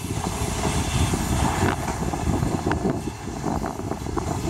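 Narrow-gauge railway carriages rolling slowly past on the track: a steady low rumble of wheels on rails, with a few brief sharp clicks and squeaks.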